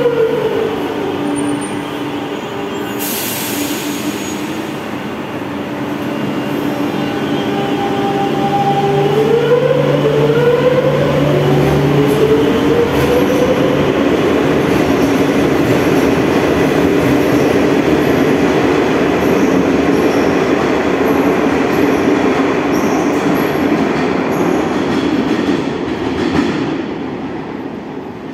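Madrid Metro Serie 8400 underground train at a station platform. Its motor whine falls in pitch as it settles to a stop at the start, with a short burst of air hiss a few seconds in. The whine then rises in pitch as it pulls away, and the rumble of wheels on rail builds, holds and fades out near the end as it leaves.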